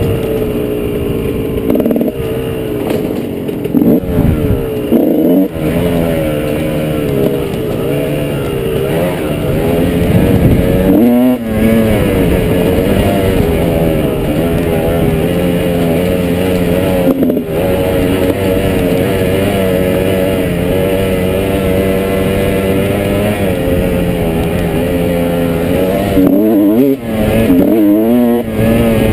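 Trail motorcycle engine running under way, its pitch rising and falling with the throttle, with a few brief drops as the rider rolls off.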